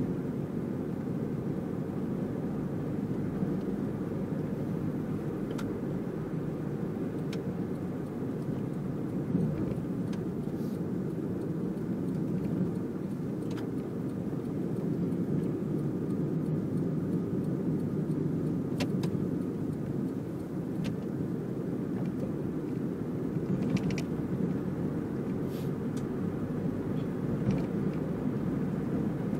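Steady car engine and road noise heard from inside the cabin while driving, with a few faint clicks scattered through it.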